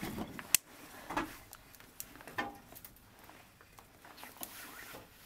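Split firewood knocking and clunking as pieces are handled and loaded into a wood-burning stove: a sharp knock about half a second in, then a few softer clunks.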